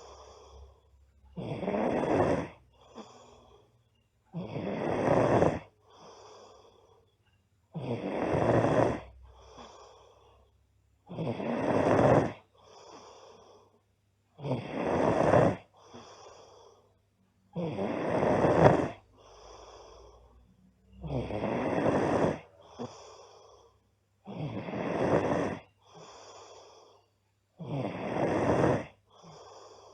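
A girl snoring loudly in a steady rhythm, a loud snore about every three seconds, each followed by a softer, shorter breath.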